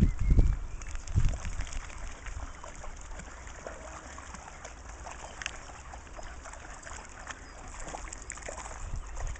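Patterdale terriers wading and splashing in shallow river water, with light scattered splashes. A few heavy low thumps at the very start and about a second in.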